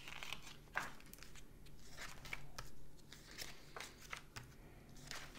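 Pages of a small paper guidebook being leafed through by hand, a string of soft, irregular rustles and flicks of paper.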